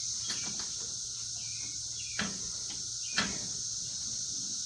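A few short knocks and clicks of metal parts being pushed into place on the UTV's shock mount, the sharpest about three seconds in, over a steady high chirring of crickets.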